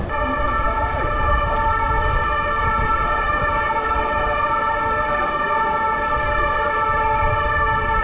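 Background music: a held chord of several steady tones that comes in abruptly and sustains without change, over a low rumble.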